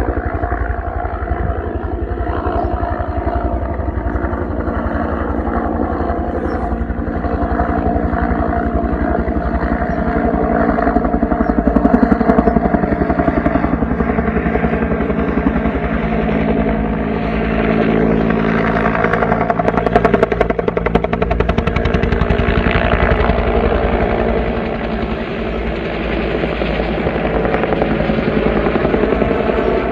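Military helicopter's rotors beating rapidly over the steady whine of its turbine engine, growing louder twice, about 12 and 20 seconds in.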